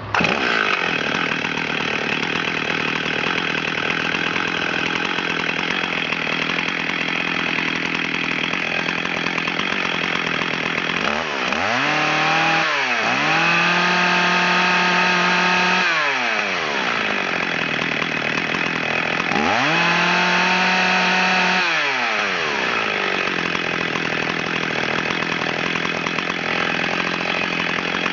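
Echo 8000 two-stroke chainsaw engine idling, revved twice to full throttle, held at high revs for a few seconds each time and then dropped back to idle. The saw is being run up so its RPM can be read on a tachometer.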